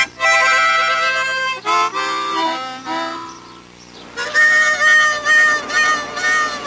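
Harmonica playing a slow tune: held notes and chords at first, then, from about four seconds in, a run of short repeated chords, roughly two a second.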